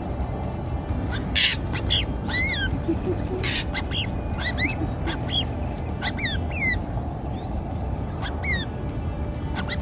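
Drongos calling: many quick, downward-sliding whistled notes repeated again and again, mixed with short harsh rasping calls, over a steady low background noise.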